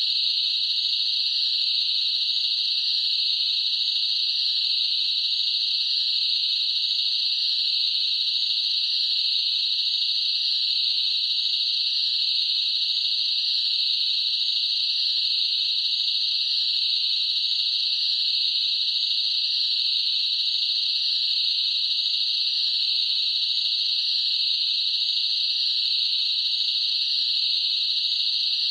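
Crickets chirping in a continuous, unbroken high-pitched trill, steady in level throughout.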